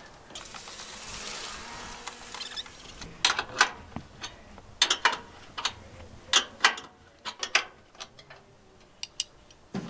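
Irregular metallic clicks and rattles of hand tools and bolts as hardware on the mini-split A/C unit's mounting cradle is fastened by hand, roughly one or two clicks a second, after a soft hiss in the first couple of seconds.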